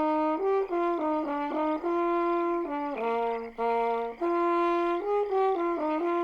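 Background score music: a single brass melody line moving through a tune of short notes and notes held about a second.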